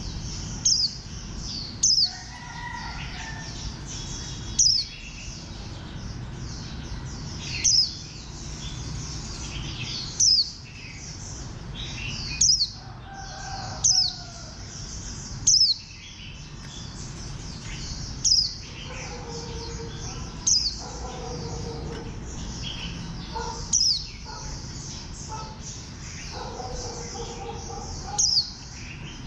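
Caged white-eye singing a long, rapid, high twittering song, broken about every two to three seconds by a loud, sharp downward-sliding note.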